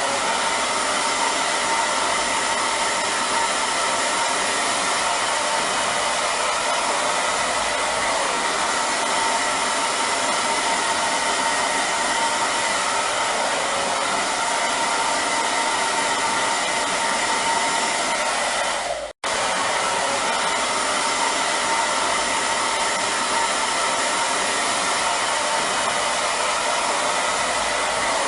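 Hair dryer running steadily: a constant blowing hiss with a faint steady whine in it. About two-thirds of the way through it cuts out for an instant and comes straight back.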